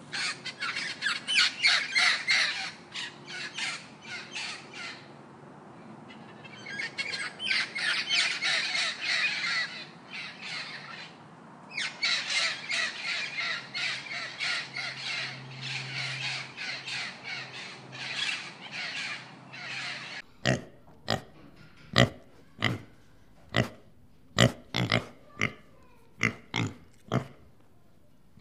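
Parrots calling in rapid runs of shrill squawks and chatter, with two short pauses. About twenty seconds in, this gives way to pigs grunting in a series of short, sharp grunts while rooting.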